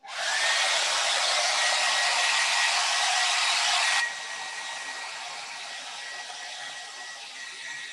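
Handheld hair dryer blowing, drying freshly brushed chalk paint, with a steady whine over the rush of air. About four seconds in it becomes markedly quieter but keeps running.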